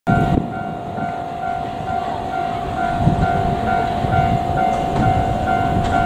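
Japanese level-crossing warning bell ringing: a repeating electronic ding about twice a second, over a low rumble.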